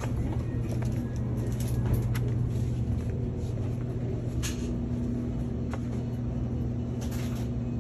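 A steady low hum and rumble with a few short, irregular clicks and rustles: footsteps and phone handling while walking into a convenience store.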